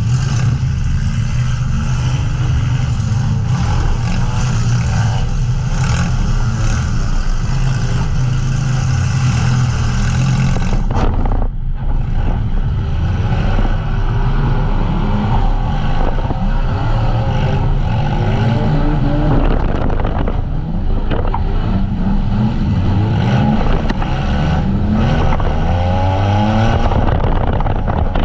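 Demolition derby van engines running loudly together, revving up and down, with pitch repeatedly rising and falling through the second half.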